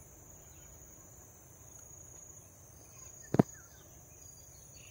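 Steady high-pitched insect drone, with a single sharp click about three and a half seconds in.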